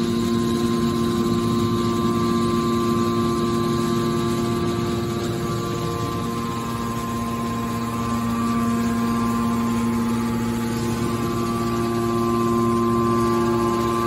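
Hydraulic power unit of a scrap metal baler running, its electric motor and pump giving a steady hum with several constant tones. The level sags a little around the middle.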